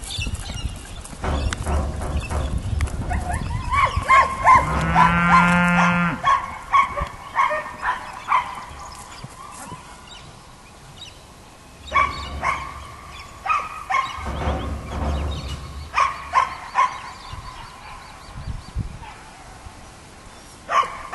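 Livestock and dog sounds: a cow lows with one long call about four seconds in, and a dog barks in short bursts through much of the rest.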